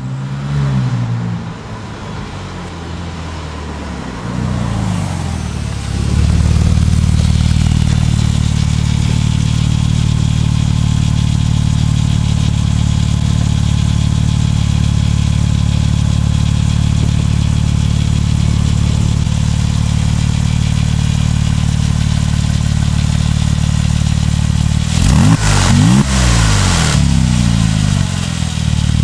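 2008 Porsche 997 Turbo Cabriolet's twin-turbo flat-six through a Fabspeed Maxflo muffler and HJS sport catalytic converters. The revs rise and fall over the first few seconds, then it runs loud at a steady pitch, with a few quick throttle blips about 25 seconds in.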